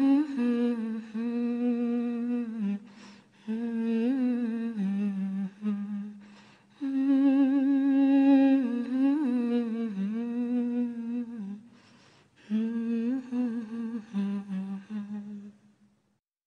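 A woman's unaccompanied voice carrying a slow, wordless Persian vocal melody in long held phrases with wavering ornaments, broken by short pauses for breath. It stops shortly before the end.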